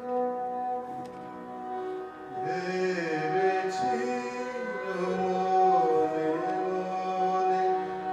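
Harmonium holding steady reed chords, joined about two and a half seconds in by a bowed esraj playing a sliding, gliding melody over the drone.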